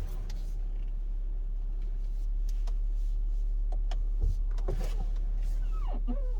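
Tesla Model X steering and front-end noise as the steering wheel is turned: scattered clicks and knocks, a louder knock about four seconds in, and short creaks near the end over a steady low hum. The owner takes it for an abnormal noise from the drive-shaft tripod joint.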